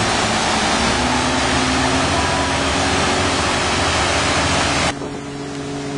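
Sports boat's engine running at speed under loud rushing wind and churning wake; the engine tone rises slightly about a second in. About five seconds in the noise drops abruptly to a quieter, steady engine drone.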